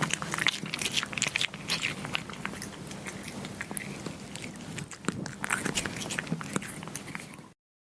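Kittens chewing and biting meat: irregular crunches and wet clicks.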